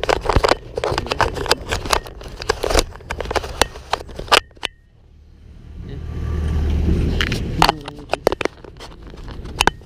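Knocks, clicks and scrapes of a helmet-mounted action camera being handled, and a vehicle passing on the road, its low rumble swelling and fading between about five and seven and a half seconds in.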